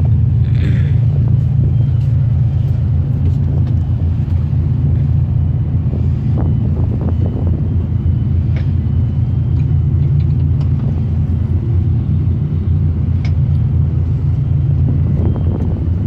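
Crew boat's diesel engines running steadily with a deep, even hum, with a few faint knocks.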